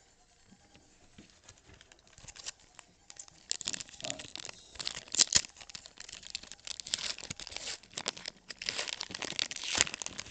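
Foil wrapper of a Topps Chrome baseball card pack being torn open and crinkled by hand. The crackling starts about two seconds in and grows louder.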